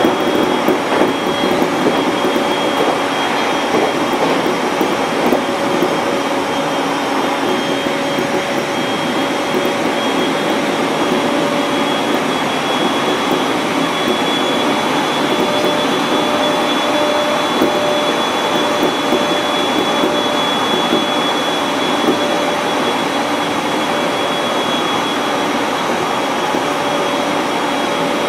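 701-series electric train running at steady speed: a continuous rumble of the wheels on the rails and the running gear, with a steady high whine over it.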